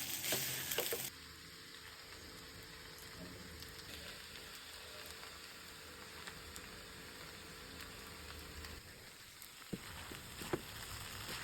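Noodles sizzling in a hot pan with clicks of stirring, cut off suddenly about a second in. Then only a faint hiss with a few light clicks near the end.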